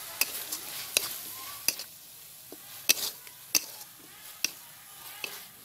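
Metal spatula scraping and clinking against a metal kadai as spice paste with green chilies is stirred and fried, in irregular sharp strokes. A light sizzle from the frying paste runs underneath and drops about two seconds in.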